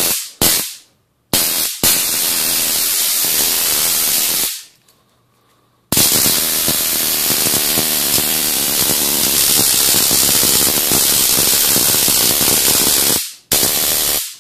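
Homemade taser built into a sword, its high-voltage spark arcing along the blade with a loud electric crackle. Two short zaps at the start, then a burst of about three seconds, a pause, and a long continuous burst of about seven seconds that breaks off briefly near the end and starts again.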